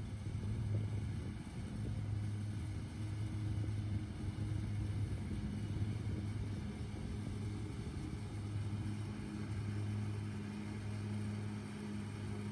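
Zero-turn riding mower's engine running with a steady low hum as the mower drives across the lawn.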